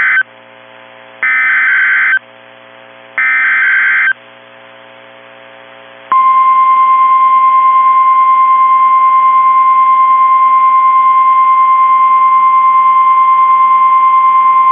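Emergency Alert System SAME header on NOAA Weather Radio: the tail of one burst of buzzy digital data tones, then two more bursts of about a second each, a second apart. After a short gap comes the steady single-pitch warning alarm tone, held for about nine seconds, which signals that a warning, here a winter storm warning, is about to be broadcast.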